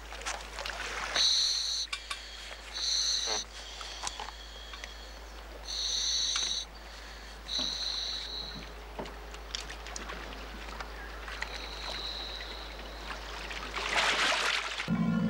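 Scuba regulator hissing with each inhalation: several breaths a second or two apart, each a short whistling hiss. Near the end comes a loud splash as a diver in full gear plunges into the water.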